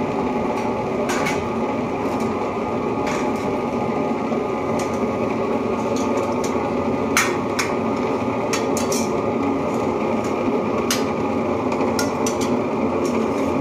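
Butterfly Rapid table-top wet grinder running steadily, its stones grinding soaked rice into idli batter; it runs well since a broken bearing was replaced. Stainless steel idiyappam steamer plates clink sharply every second or so over the drone.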